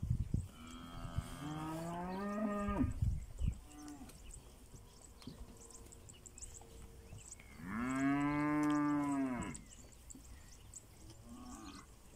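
Pinzgauer cattle mooing twice: a long moo that climbs in pitch just after the start, then a louder moo about eight seconds in that rises and falls.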